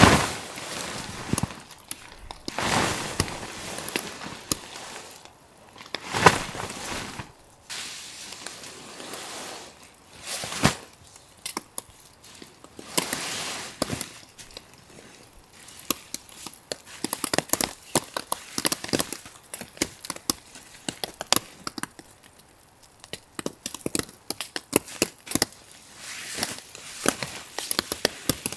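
Camping gear being taken down and packed in snow: several rustling swishes and sharp knocks, then a quick run of small clicks and crunches through the second half.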